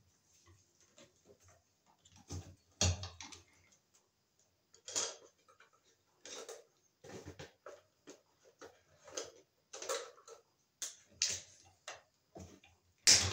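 Irregular clicks, taps and rustles of hand work on a ceiling light fixture box: pliers, wires and the fixture being handled and debris pulled out. The loudest knocks come about three seconds in and again at the very end.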